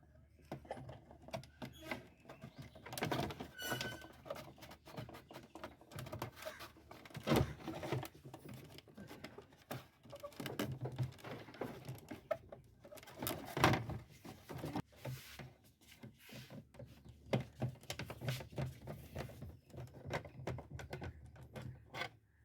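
Irregular clicks, knocks and rattles of hands and tools working on a semi-automatic washing machine's plastic body and fittings.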